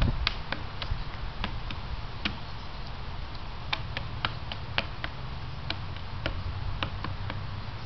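Irregular sharp taps of hands striking a wooden post during a kung fu form, about twenty in all, some in quick clusters. A low steady rumble sits beneath them.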